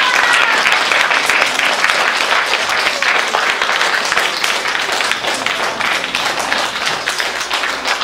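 Applause: many people clapping together, a dense, steady spread of hand claps.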